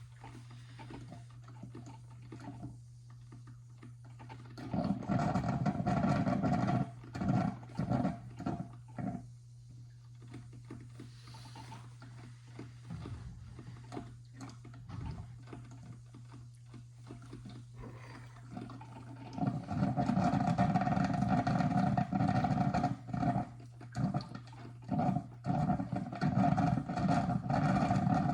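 Mr. Coffee drip coffee maker brewing, gurgling and sputtering in irregular spurts as it pushes hot water through, over a steady low hum. The sputtering comes in two long stretches, from about five to ten seconds in and again from about twenty seconds in.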